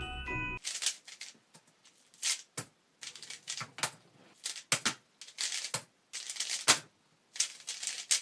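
Plastic speedcube (Rubik's cube) being turned fast, in quick runs of clicking, clacking turns with short pauses between them, starting about half a second in after a bit of glockenspiel-like music stops.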